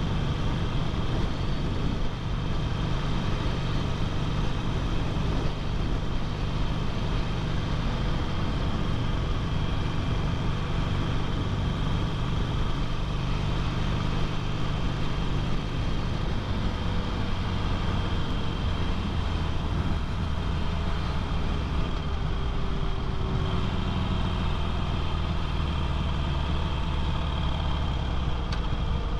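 Harley-Davidson Sportster's air-cooled V-twin engine running steadily while the motorcycle cruises at road speed.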